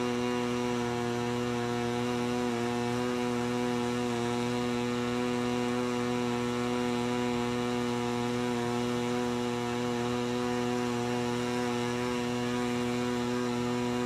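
Steady electrical mains hum: a low buzz with many even overtones that does not change.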